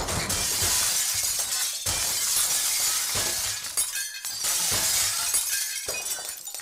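Sound effect of glass shattering and crashing: a long run of smashing with several heavier hits along the way.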